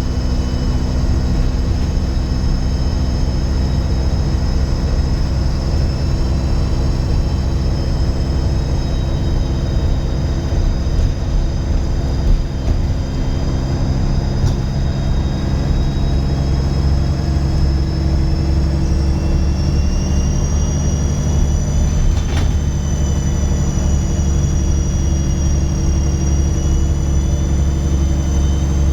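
Dennis Trident 2 double-decker bus under way, its diesel engine droning low with a loud, high turbocharger whistle over it; the whistle rises in pitch about two-thirds of the way through as the engine pulls harder.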